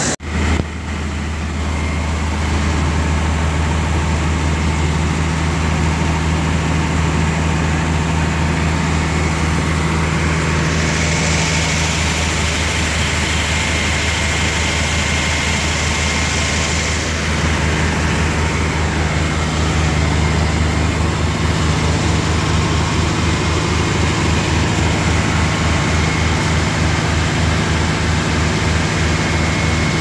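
Fire truck engine idling with a steady low hum. A hiss rises over it for several seconds in the middle, and a low throb in the engine note grows more distinct over the last third.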